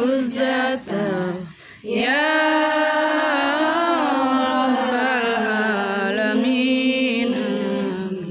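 Women chanting an Arabic recitation together in long, drawn-out melodic lines, with a brief pause about a second and a half in.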